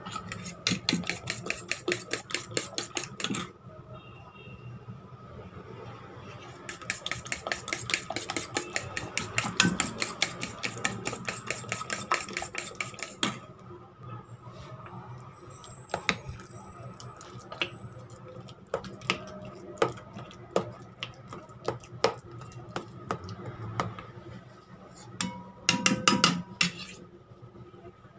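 Raw eggs being beaten with a metal utensil in a stainless-steel bowl, the utensil rapidly clicking against the bowl's side at about six or seven strokes a second in two long runs. After that come scattered clinks of metal on the bowl, with a quick flurry near the end.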